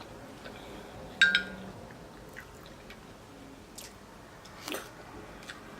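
Quiet chewing and mouth sounds close to the microphone, with one sharp, ringing clink of cutlery against a dish about a second in.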